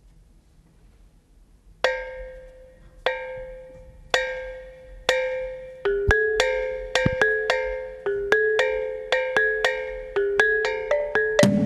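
Kulintang-style tuned gongs struck one note at a time, each note ringing on. They start about two seconds in with slow single strikes about a second apart, then quicken from about six seconds in into a steady pattern alternating between a lower and a higher note.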